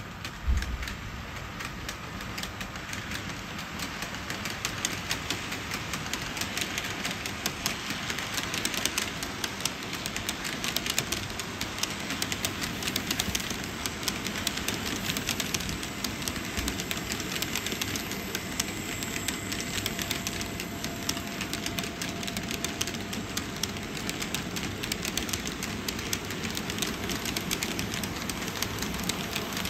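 N-gauge model trains running on layout track: a dense, steady run of small wheel and rail-joint clicks that grows gradually louder as a KATO E235-1000 model passes close near the end. A short low thump comes just after the start.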